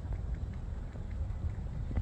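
Kitten eating wet cat food from a bowl, with faint quick clicks of chewing and lapping, under a low rumble of wind on the microphone.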